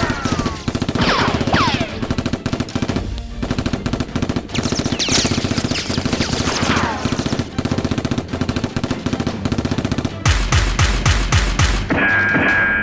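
Rapid automatic gunfire sound effects with falling ricochet whizzes, dubbed over the Nerf blaster fight, with background music. About ten seconds in, the fire turns into heavier, more spaced shots with deep thumps.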